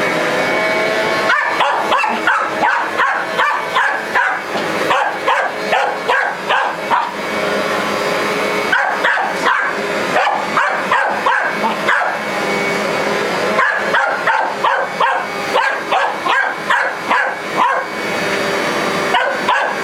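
A dog barking repeatedly, about two barks a second in long runs with short breaks, over a vacuum cleaner running steadily.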